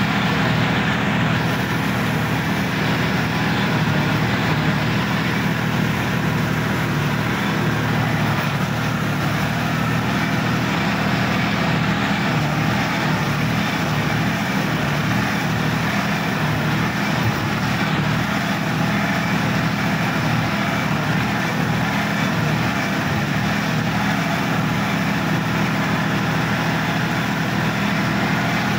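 Sonalika DI-50 RX tractor's diesel engine running steadily as the tractor drives, heard from the driver's seat.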